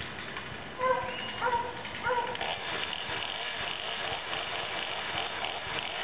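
An animal calling three times in quick succession about a second in, short pitched calls, over a steady outdoor background hiss.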